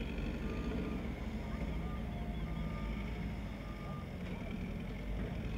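A heavy vehicle's engine running steadily, with its reversing alarm giving short beeps about once a second.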